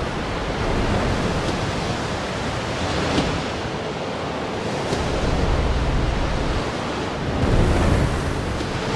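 Steady rushing wash of sea water and wind, with a low rumble underneath that swells and eases.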